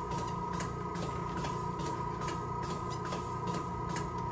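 Steady electronic whine with a low hum underneath and faint regular ticks, about three a second, from electrical equipment.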